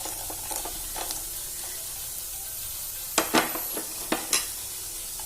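Chicken and onion-masala filling sizzling in a frying pan. A spoon stirs it and clatters against the pan four times in the second half.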